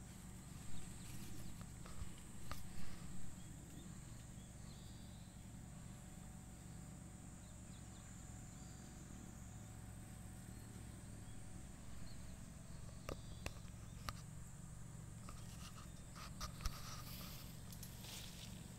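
Soft scratches and rustles in grass from a Japanese badger rooting at close range, loudest in the first few seconds, with a few fainter ones later. Underneath is a steady high hiss and a low hum.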